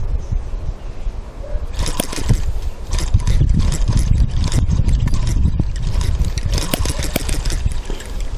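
Miniature 1.6cc four-stroke hit-and-miss model engine being coaxed to start, giving a run of sharp pops about three a second for several seconds as it fires intermittently. Heavy low rumble underneath.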